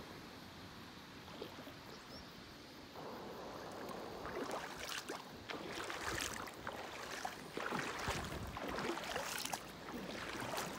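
Shallow, clear river running over a stony bed, gurgling and splashing with many small irregular plops. It is faint for the first three seconds and becomes louder and busier from about three seconds in.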